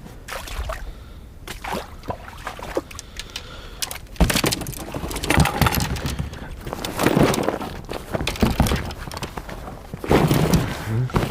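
Fishing gear being handled and packed away: scattered clicks, rustles and knocks, with a sharp thump about four seconds in.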